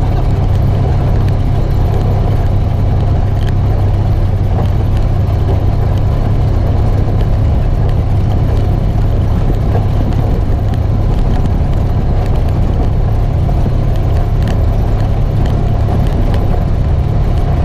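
Polaris RZR 900 Trail side-by-side's twin-cylinder engine running steadily under way over rocky trail, heard from inside the open cab, with scattered faint knocks and rattles from the rough ground.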